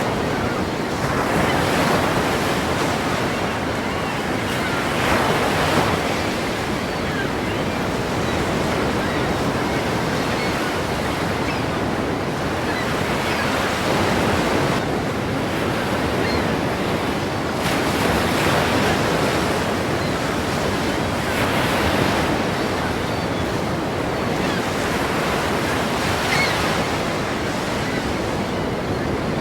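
Ocean surf: waves breaking and washing in as a continuous loud rush of water, swelling every few seconds as each wave breaks.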